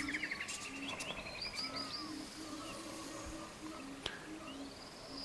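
Birdsong: several birds chirping and whistling in short, curved phrases, one giving a fast trill at the start, over a low, soft cooing repeated throughout.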